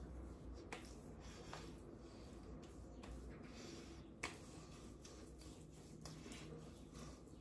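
Faint soft rubbing and squishing of hands working a dense tallow aftershave balm into the skin of the face and neck, with small clicks and one sharper click about four seconds in.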